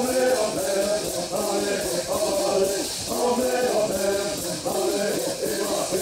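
Native American bird singing: a group of men singing a bird song together in a chanting line, each shaking a gourd rattle in a steady, even rhythm.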